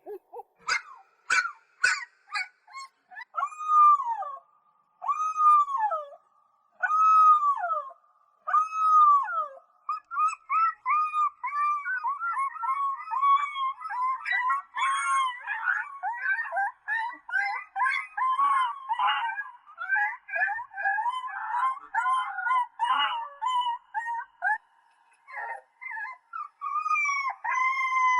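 Puppies howling. First come four separate drawn-out howls, each dropping in pitch at its end. From about ten seconds in, several pups howl and yip over one another in a busy chorus.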